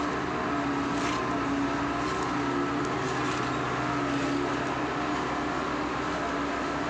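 Diesel engine of a tandem double-drum road roller running steadily as it rolls over freshly laid asphalt, with a fast, even low pulsing under the engine note.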